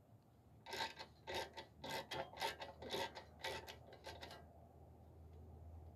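Hand-tool work on a lawn mower engine: a series of short rasping strokes, about two to three a second, that stop about four seconds in.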